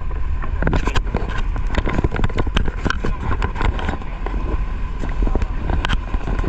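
Fire pumper truck driving, its engine rumbling low and steady under wind noise on the microphone, with frequent rattles and knocks.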